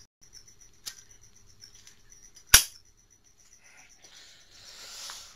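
Zippo lighter being handled in a flip trick: a faint metallic click about a second in, then a loud, sharp clack from the lid snapping about halfway through, followed by soft rustling near the end.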